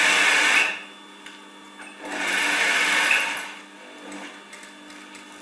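Brother sewing machine stitching a seam through pinned layers of cushion fabric, running in two short bursts: one that stops under a second in, and another from about two seconds in that stops about a second and a half later.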